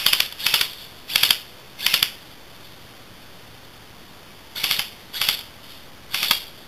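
Airsoft rifle firing short, rattling bursts: four in quick succession, then after a pause of about two seconds three more.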